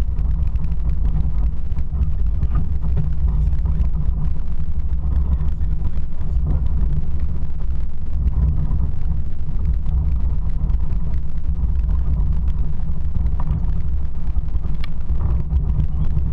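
Steady low rumble of a motor vehicle on the move, with no break or change in level.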